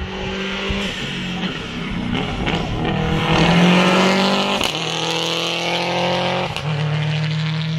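Subaru Impreza rally car's turbocharged flat-four engine accelerating hard past. Its pitch climbs and drops sharply twice as it changes up gears, and it is loudest as it goes by about four seconds in.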